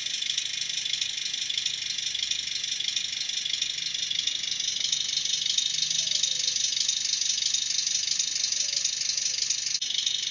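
Tiny loudspeaker of an ESU LokSound micro V4.0 sound decoder in a Bemo HOm model of an RhB Tm 2/2 tractor, playing a steady, rattly diesel engine sound as the model runs slowly along the track. The sound dips for an instant near the end.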